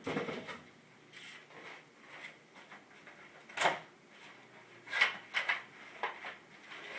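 Cardboard boxes and packaging being handled and pulled out of a carton: a string of short scrapes and knocks, the loudest about halfway through and again about five seconds in.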